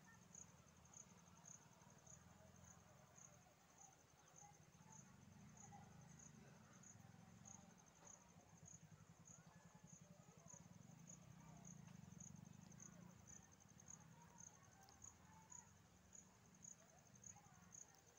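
Faint chirping of a cricket: a high-pitched pulse repeating evenly about twice a second, over a low rumble.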